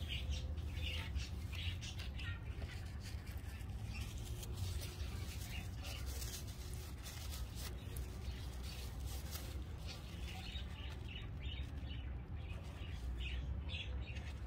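Birds chirping, with a low, steady rumble underneath.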